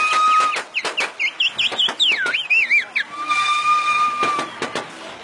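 Shrill whistling that warbles quickly up and down for the first few seconds, then a single steady whistle note held for about a second, with scattered clicks and knocks underneath.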